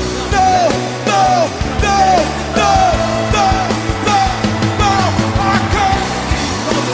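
Live gospel worship band playing an instrumental passage, with a lead line of short falling-pitch notes repeating a little more than once a second over sustained low bass and chords.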